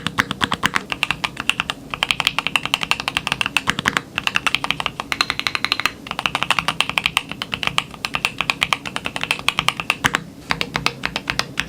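Rapid, continuous typing on a Keychron Q1 HE keyboard with a solid copper case, Gateron Hall-effect magnetic switches and ABS keycaps, many keystrokes a second with a few short pauses. The keystrokes are very quiet, nice and quiet.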